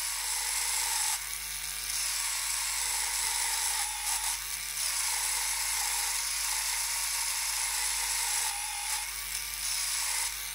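Clatronic battery-powered nail file running steadily, its white rubber buffer attachment spinning against a fingernail to polish it: a steady high whirr that dips slightly a few times.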